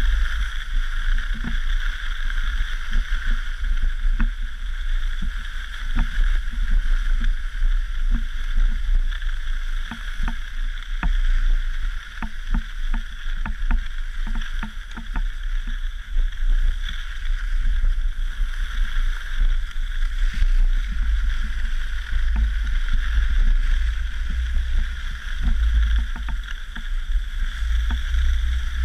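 Wind rumbling on the microphone of a camera carried on a ski pole, over a steady hiss of skis sliding on groomed snow, with a run of small knocks in the middle.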